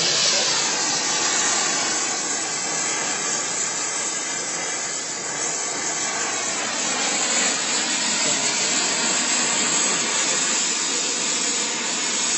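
Sawdust briquettes burning with a steady, loud rushing hiss.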